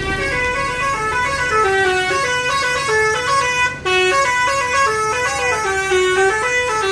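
Bus telolet horn playing a fast multi-note tune, the notes stepping up and down several times a second, with a brief gap about four seconds in.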